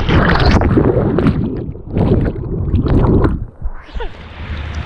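Water rushing and wind buffeting the microphone in irregular surges while riding down a water slide on a mat.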